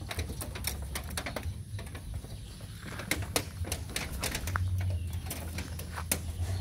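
Puppy chewing and pawing at a rubber sandal and jeans: a scattered run of small sharp clicks and scuffs, over a steady low hum.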